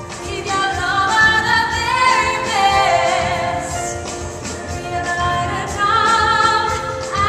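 Live musical-theatre song: a woman singing with vibrato over full orchestral accompaniment, the melody sliding up and down.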